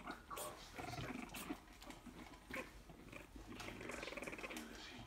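Three-week-old Boston terrier puppies making small, faint vocal sounds as they clamber over one another, mixed with short, irregular scuffs and clicks.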